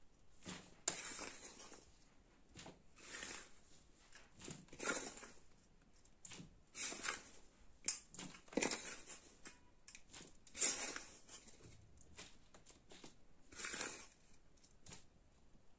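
Dry, crumbly soil scooped by hand from a steel bowl and dropped into a planter pot: irregular rustling scrapes and the patter of falling soil, one every second or two, all faint.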